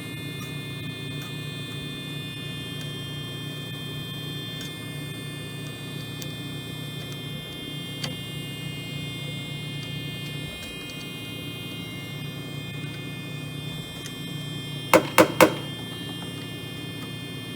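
Steady low hum of an idling engine with a faint high whine. About fifteen seconds in come three quick, loud, sharp beeps or clicks.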